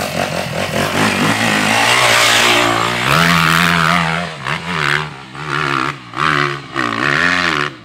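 Dirt bike engine revving hard while climbing a steep dirt hill, held at high revs for the first few seconds. It then goes into short bursts as the throttle is opened and closed.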